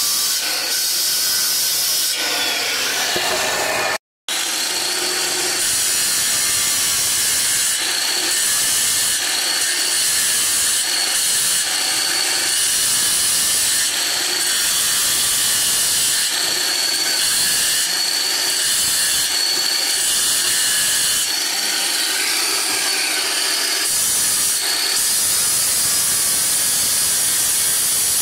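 Handheld electric marble cutter, a circular saw with a stone blade, running steadily as it wet-cuts along the edge of a marble slab with water fed onto the blade: a high whine over a grinding hiss. The sound drops out for a split second about four seconds in.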